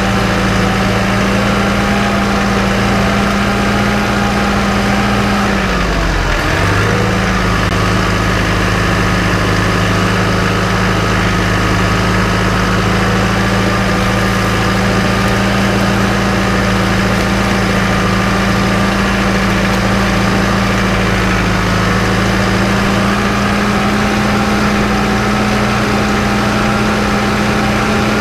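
John Deere 4066R compact tractor's diesel engine running steadily as it drives, its pitch dipping briefly and recovering about six seconds in and rising slightly near the end.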